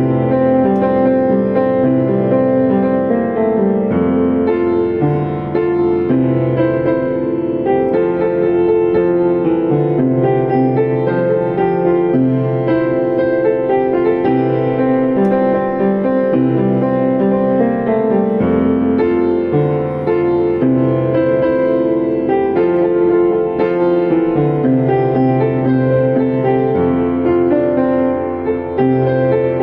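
Piano playing a song tune over a moving bass line.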